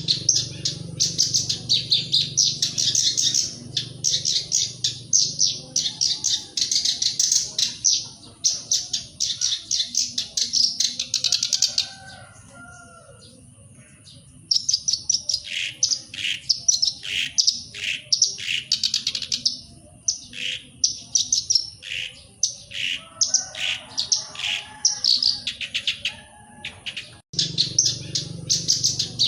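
Black-browed reed warbler singing: a fast chattering song of rapid repeated notes, breaking off for about two seconds midway.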